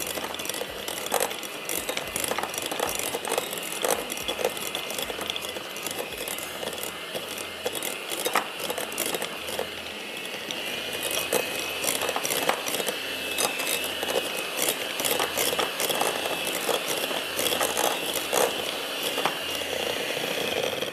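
Electric mixer beating butter and icing sugar into frosting: a steady motor whine with the beaters clattering and ticking against the bowl. The whine dips slightly in pitch about halfway.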